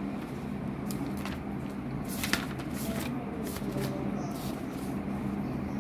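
A few brief rustles and clicks of something being handled, over a steady low hum.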